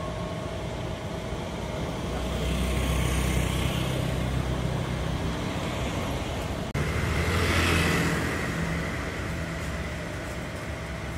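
Street traffic: motor vehicle engines passing close by, the hum swelling and fading twice over steady street noise.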